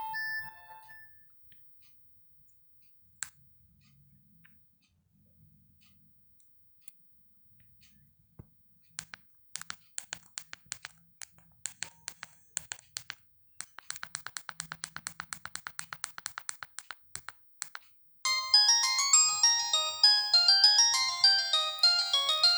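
Samsung GT-E1080F phone ringtones: one tune ends just after the start, then after several seconds of near silence comes a run of sharp clicks that turns into a fast, even ticking. About four fifths of the way through, a loud ringtone melody of several notes at once starts and plays on.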